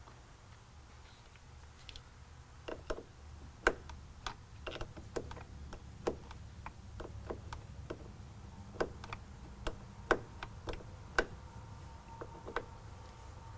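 Irregular sharp metallic clicks and clinks, starting about two seconds in, from a hand tool and a wire's ring terminal being worked on a truck battery's terminal bolt, over a low steady hum.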